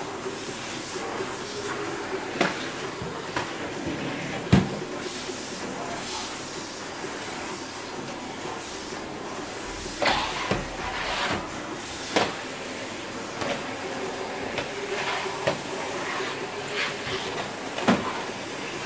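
Canister vacuum cleaner running steadily with a faint hum while its wand is pushed over a rug. Now and then there is a sharp knock or bump, the loudest about four and a half seconds in.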